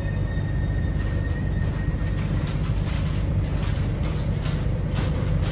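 MTR C-train electric metro train slowing into a station, heard from inside the car: a steady low rumble with a thin whine that fades out about two seconds in, then a run of clicks and knocks as it draws up to the platform.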